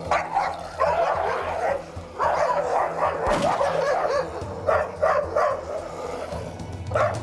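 Jindo dogs barking and snarling in a fight through a fence, in a continuous run of harsh bursts.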